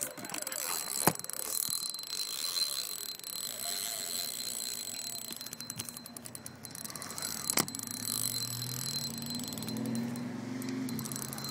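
Spinning reel ticking in rapid runs while a hooked pink salmon is played on the line, over a steady hiss of running river water, with two sharp knocks.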